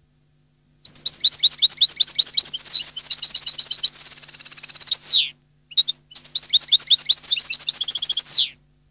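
European goldfinch singing a Neapolitan-style song: two long phrases of fast high twittering notes, each ending in a falling slur, with a short note between them and a buzzy trill near the end of the first phrase.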